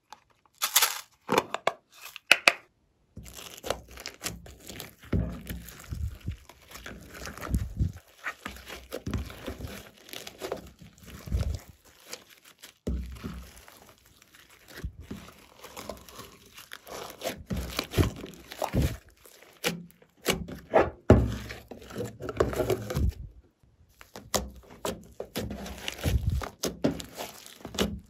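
Glossy slime being stretched, pulled and kneaded by hand, giving an irregular run of sticky crackles, pops and squelches with brief pauses. A few sharp clicks in the first couple of seconds as a small plastic container is handled.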